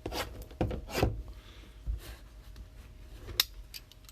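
Sealed trading-card boxes being handled and opened: cardboard and wrapper rubbing and scraping in a few short strokes, with a sharp click near the end.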